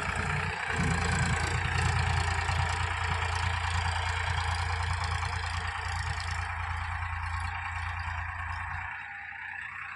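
Farm tractor's diesel engine running steadily with a low drone, which drops away about nine seconds in.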